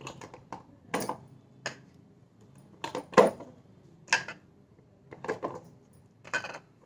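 Round glass spice jars with steel lids clinking and knocking as they are moved by hand and set down on a hard floor: about ten short, sharp clinks at an uneven pace, the loudest a little after three seconds in.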